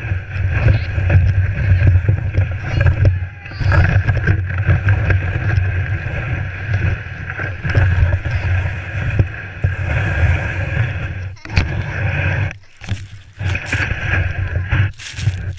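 GT snow racer sled's runners rumbling and scraping over snow, heard through a GoPro housing mounted on the sled. The sound is steady, with a few short drop-outs near the end.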